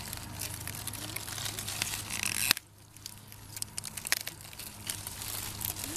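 Rustling and crackling of leaves and dry stalks as a hand pushes through a prickly cardoon plant. The sound breaks off abruptly about two and a half seconds in, then goes on more quietly.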